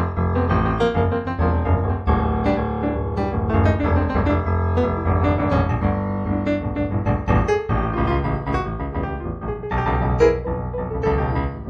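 Background piano music, played freely with many struck notes and sustained chords.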